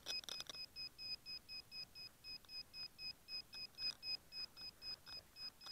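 Electronic beeper on a Neewer FPV quadcopter beeping evenly about four times a second, high-pitched, as it lies downed in the grass. A short burst of rustling and knocks comes in the first half-second.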